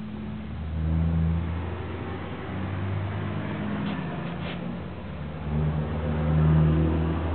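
A vehicle engine running with a low hum that rises in level and pitch twice, about a second in and again near the end, as if revving or passing. Two faint clicks come near the middle.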